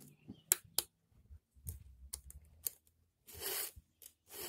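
Hand round file rasping against a steel saw-chain cutter tooth as the chain is sharpened: a couple of sharp metallic clicks about half a second in, then two short file strokes near the end.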